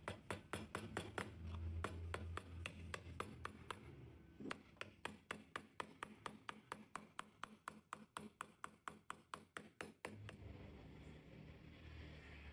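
A regular series of sharp clicks, about four a second, with a short break about four seconds in and stopping about ten seconds in; a faint low hum follows.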